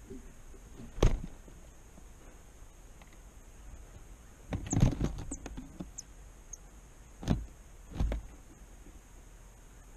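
Small birds landing and moving on the rim of a wicker basket feeder, knocking and scraping the basket. There is a sharp thump about a second in, a cluster of bumps and scratches around the middle, and two more thumps near the end, along with a few very brief high chirps in the middle.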